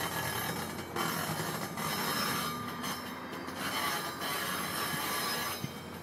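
GO Transit bilevel passenger coaches rolling past, their steel wheels hissing and grinding on the rails in several loud stretches that die down about half a second before the end, over a low rumble.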